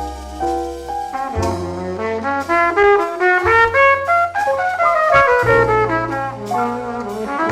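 Recorded jazz trumpet solo: quick runs of notes over a bass line.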